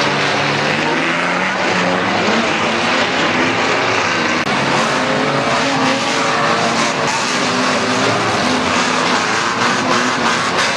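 Several unlimited banger racing cars' engines running hard, their pitches rising and falling over one another, with tyres skidding.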